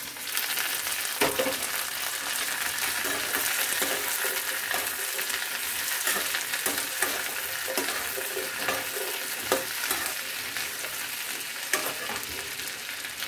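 Chopped flat beans, potatoes and tomatoes sizzling in hot oil in a kadhai, just added to browned onion and garlic. A metal ladle stirs them, scraping and knocking against the pan now and then.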